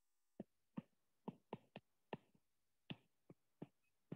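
Faint, irregular clicks of a stylus tip tapping a tablet's glass screen while drawing, about ten in four seconds.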